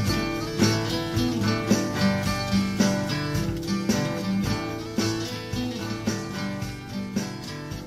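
Acoustic guitar music, picked and strummed in a steady rhythm, slowly fading out as the song ends.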